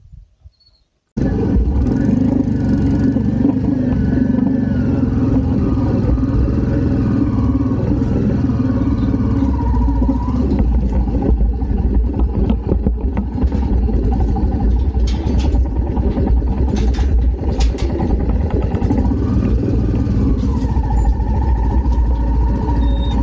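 Motorcycle engine running steadily while riding, coming in abruptly about a second in.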